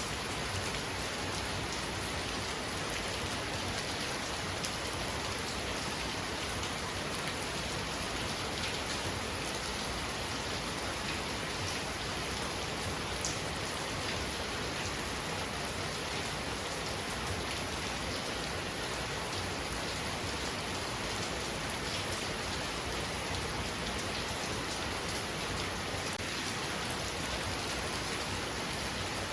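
Heavy rain pouring steadily, a dense even hiss of rain on surfaces with fine scattered drop ticks.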